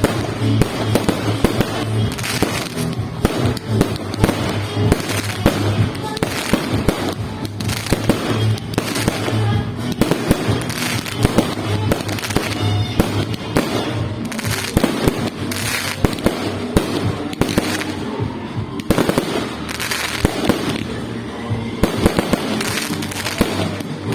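A continuous barrage of firework bangs and crackles, many shots a second and no lull, over steady background music.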